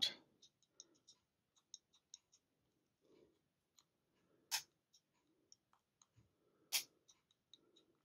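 Faint ticking of a Lockwood ASSA ABLOY stainless steel combination padlock's dial being turned step by step, with two sharper clicks about four and a half seconds in and again about two seconds later as the dial clicks into the next gate with the shackle pulled up.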